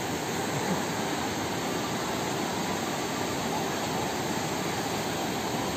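Steady rush of flowing river water, an even, unbroken sound.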